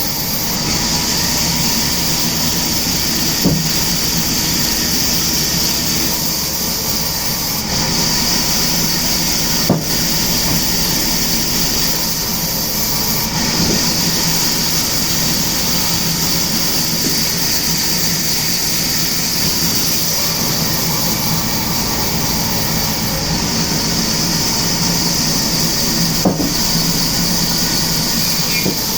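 Sawmill machinery running steadily with a loud hiss, broken by three sharp knocks.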